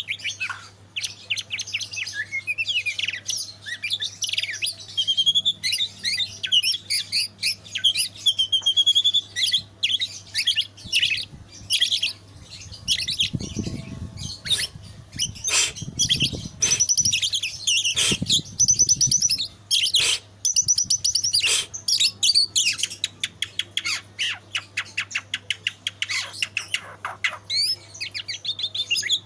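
White-rumped shama (murai batu) singing a long, varied song of whistled phrases, fast trills and sharp chips, with hardly a pause. Some low thuds come in around the middle, under a faint steady hum.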